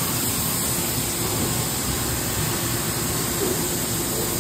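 Freedom FMC 4020 CNC vertical machining center running with its spindle turning: a steady, even machine noise with a faint steady hum.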